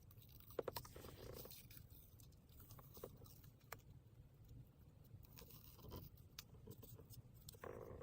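Near silence with faint, scattered clicks, taps and a soft rustle: hands wrapping gauze over double-sided tape onto a shift knob.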